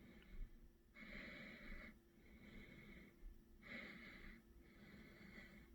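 Near silence with faint breathing close to the microphone, a few soft breaths about a second long each.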